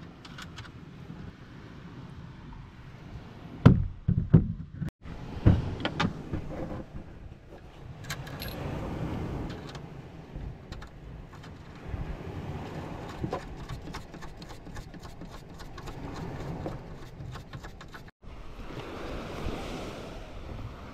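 Hand-work noises from fitting an engine onto its mounting bolts in a small boat: a few sharp knocks about four to six seconds in, the loudest sounds, then a run of light metallic clicks. Steady wind and surf noise lies beneath.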